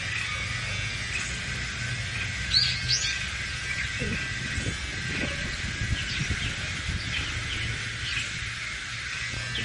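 Birds chirping in short, high, rising calls, clearest about two and a half and three seconds in, over a steady low background hum, with a few low knocks near the middle.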